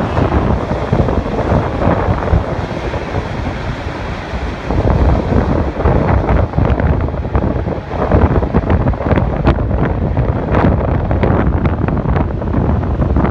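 Heavy wind buffeting the microphone, with a passing freight train's rumble underneath it.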